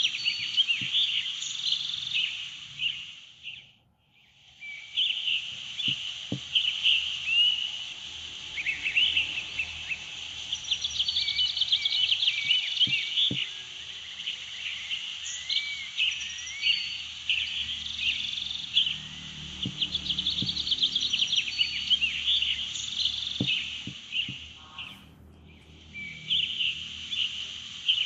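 Many birds chirping and singing together, a dense chorus of short rising and falling calls. It dips almost to silence about four seconds in, then comes back, and fades briefly again near the end.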